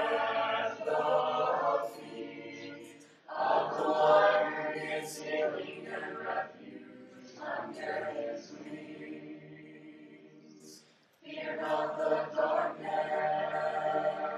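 Background song: voices singing a slow worship song in close harmony. A new phrase swells in about three seconds in, fades gradually, and another begins near eleven seconds.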